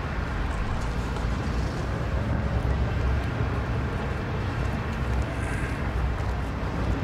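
Steady street ambience with a low traffic rumble, which cuts off suddenly at the end.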